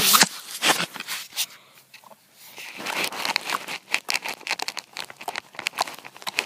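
Rainbow slime being poked and squished by hand, making rapid small crackles and wet clicks, with a short lull about two seconds in before the crackling picks up again.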